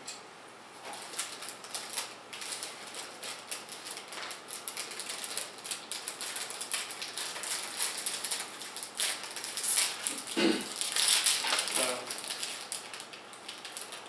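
Rapid small clicks and taps of plastic and metal computer parts being handled and fitted on a tabletop, with a louder rustling, clattering patch about ten to twelve seconds in.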